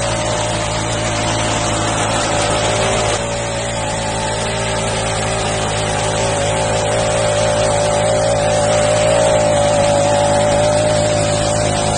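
Small petrol engine of a walk-behind mini tiller-weeder running steadily at a constant pitch as it cuts weeds and loosens soil, with a brief dip about three seconds in.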